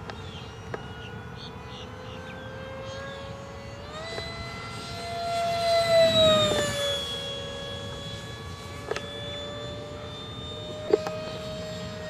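Electric ducted-fan RC jet in flight: a steady high-pitched whine that rises in pitch and swells from about four seconds in, is loudest around six seconds, then settles to a steady pitch again. There are a few sharp clicks, the loudest near the end.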